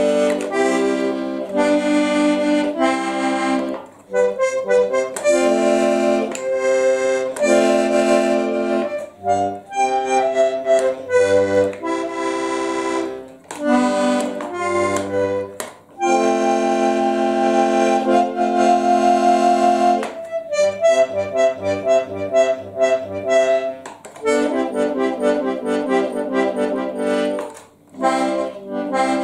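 Button accordion played solo: held chords and short phrases broken by brief pauses, with bass notes coming in now and then. The notes change more quickly in the second half.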